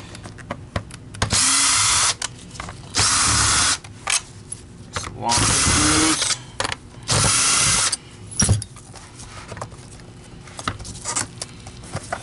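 Cordless drill-driver backing screws out of a vacuum power head's plastic housing, running in four short spins of about a second each. Clicks and knocks from handling the housing and screws follow near the end.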